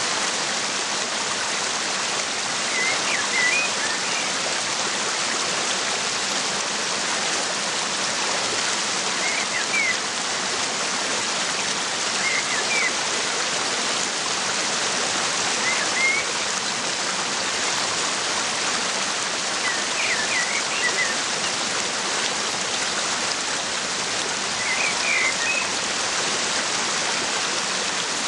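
Waterfall rushing steadily, with small birds giving short bursts of chirps every few seconds.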